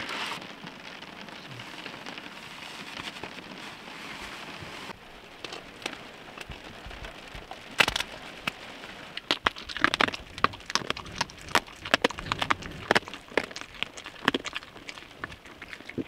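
Rain falling steadily on the car roof, heard from inside the cabin. From about five seconds in, and thicker from about eight seconds, comes a run of sharp, irregular crunches: a dog chewing a homemade dog treat.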